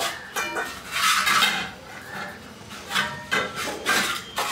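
Fingers mixing rice by hand on ceramic plates: short, irregular strokes of soft rubbing and scraping against the plate.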